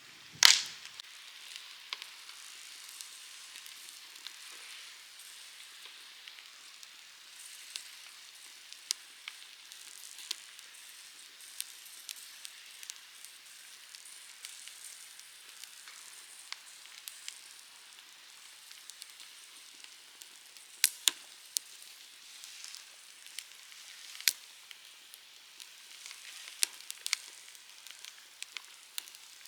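Wood campfire burning with a steady hiss and irregular sharp crackles and pops, the loudest pop about half a second in.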